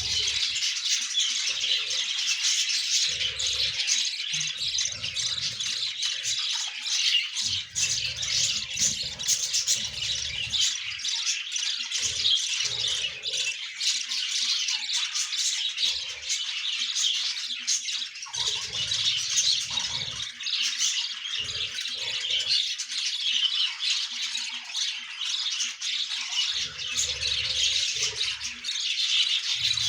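A flock of budgerigars chattering without pause, a dense mix of short high chirps and squawks, with low rumbles coming and going underneath.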